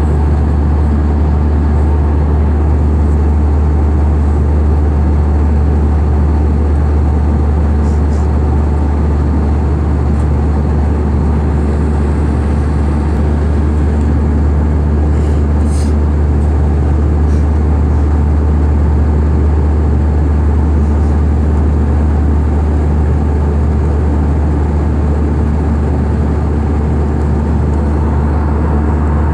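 Steady, loud, low rumble of a running vehicle or engine that does not change throughout, with a constant deep hum underneath.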